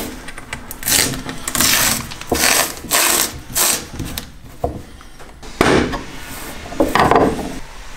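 A tool levering at the lid of a metal paint tin, making several short scrapes and clicks against the rim as the lid is worked loose.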